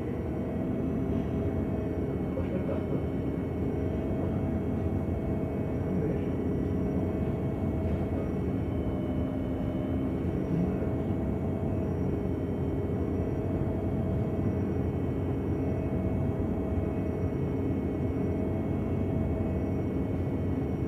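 MAN NG 273 T4 articulated city bus's LPG engine running steadily, with a faint whine that holds one pitch and wavers only slightly.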